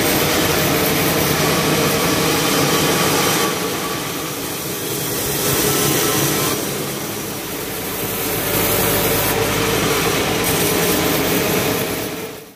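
Band sawmill running, its blade cutting lengthwise through a cempedak log: a loud, steady saw noise that eases off twice and swells back.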